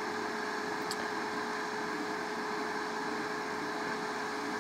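Steady hum of a small fan, even in level, with a single constant tone running through it.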